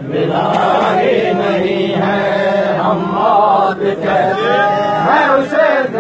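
Men's voices chanting a noha, a Shia mourning lament, in long wavering sung notes.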